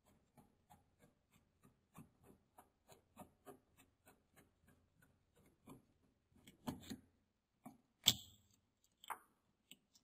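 A twin-tub washing machine's plastic drain-valve cap is twisted and worked loose by hand. It gives a run of small clicks and creaks, about three or four a second, then a few louder knocks in the last few seconds as the cap comes free, the loudest about eight seconds in.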